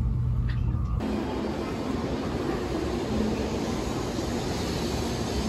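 About a second of low rumble inside a Shinkansen carriage, then a steady whooshing hum beside an N700-series Shinkansen train at the station platform.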